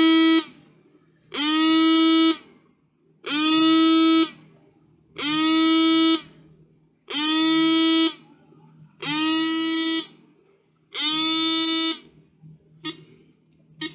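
Transistor alarm circuit sounding a repeating electronic alarm tone: a buzzy beep about a second long that swoops quickly up in pitch and then holds steady, repeated about every two seconds. A few faint clicks follow near the end.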